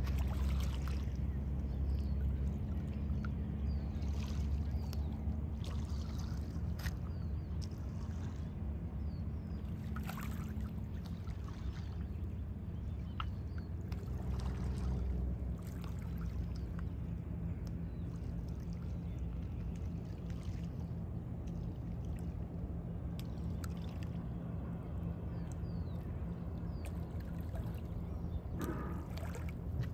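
A steady low engine hum, its pitch shifting slightly about halfway through, with short faint chirps above it.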